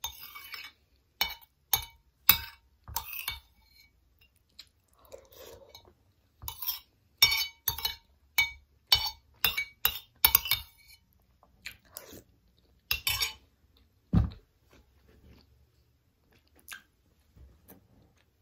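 A metal spoon clinks and scrapes against a ceramic bowl as the last of a coconut-milk dessert with sticky rice is scooped up, with close-up chewing and mouth sounds between the clinks. There is one dull, low knock later on.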